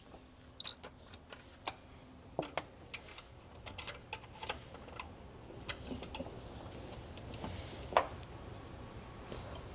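Irregular small metallic clicks and taps of a long bolt and spacers being worked through an A/C compressor's lower mounting ears and steel bracket, with one sharper click about eight seconds in.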